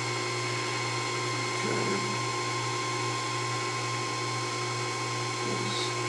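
Proxxon PD 150/E mini lathe's motor running steadily, a hum with a high, even whine.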